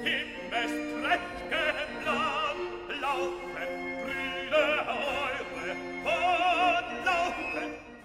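Operatic singing with wide vibrato on long held notes, over a sustained classical accompaniment.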